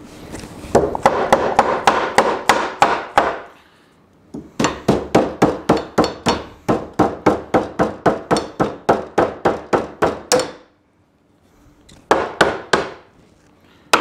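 Claw hammer tapping on the clamped cedar fence-picket boards of a planter box, knocking uneven, protruding edges down flush. Quick, even taps at about four a second come in three runs, with a pause about four seconds in and another near the eleventh second.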